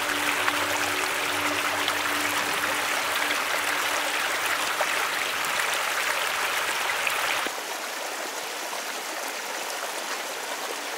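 Shallow mountain stream rushing over rocks, heard close up. About seven and a half seconds in it drops to a softer, more distant babble.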